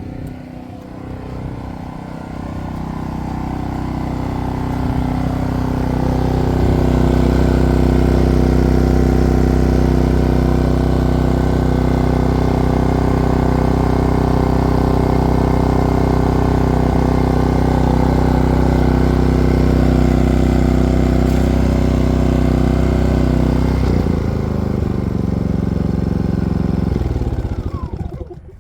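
Maxpeedingrods MXR4000GT inverter generator's single-cylinder four-stroke OHV engine running, speeding up over the first several seconds as the inverter throttles up to carry an electrical load. It holds a steady high speed, then drops back at about 24 seconds and winds down further near the end.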